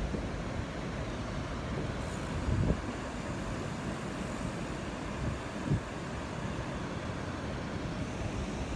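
Steady rush of river water pouring over a weir, with a couple of brief low thumps about two and a half and five and a half seconds in.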